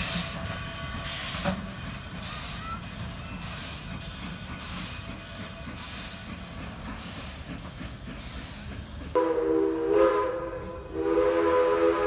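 Durango & Silverton steam locomotive No. 476, a K-28 2-8-2, chuffing as it pulls away, with steady exhaust beats a little over one a second and a hiss of steam. About nine seconds in its whistle sounds several notes at once: a long blast, a brief break, then a second blast that is still going at the end.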